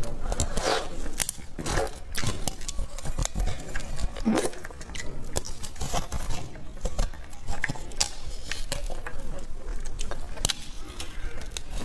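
Hard ice being bitten and crushed between the teeth: a fast, irregular run of sharp crunches and cracks.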